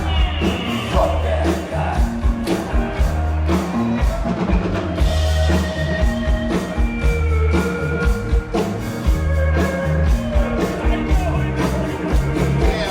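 Live rock band playing: a steady drum kit beat under bass and electric guitar, with held guitar notes over the top.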